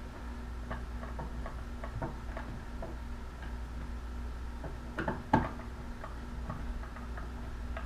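Small clicks and ticks of a screwdriver working the metal mounting screws of a dimmer switch in its electrical box, about two or three a second, with a louder double knock a little after five seconds in.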